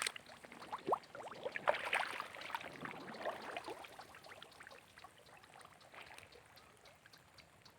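Small splashes, drips and trickles of water, busiest in the first few seconds and then fading away.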